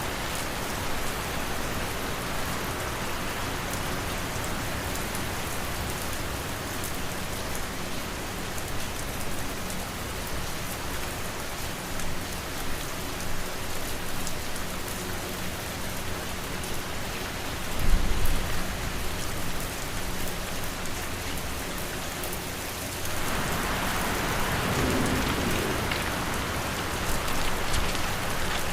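Steady rain on a surface in an ambience mix, with a faint steady low fan hum beneath it. About two-thirds of the way through there is a brief low thump, and for the last several seconds the noise swells louder and brighter, as with a gust of wind or heavier rain.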